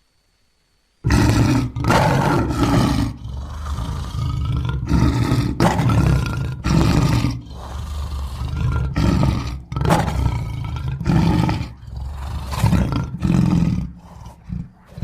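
Lion roaring: after a brief silence, a fast run of deep, loud roars, more than one a second, that eases off near the end.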